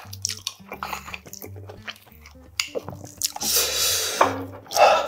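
Close-up eating sounds: chewing, wet mouth noises and chopsticks clicking against a ceramic rice bowl, with louder eating noises about three and a half seconds in and again near the end. Background music with a steady bass line plays underneath.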